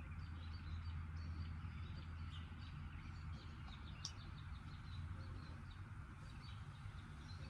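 Faint small birds chirping in quick, scattered high notes over a steady low hum, with a single sharp tick about four seconds in.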